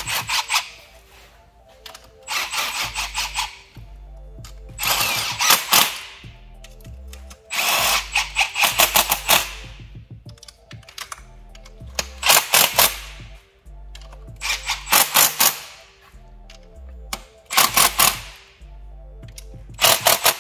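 Power tool running the fuel rail bolts down in about eight short bursts of rapid clicking, each a second or two long, with background music underneath.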